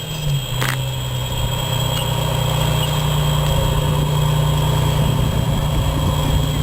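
Large vehicle engine idling, a steady low drone that grows slightly louder, with a brief click under a second in.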